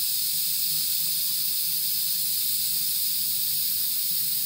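Airbrush spraying paint, a steady hiss of compressed air through the nozzle.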